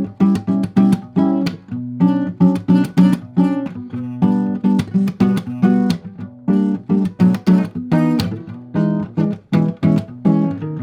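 Guitar playing a rapid series of strummed chords, all B chords or close variants fretted at the same fret, about two to three strokes a second, each chord ringing and dying away before the next.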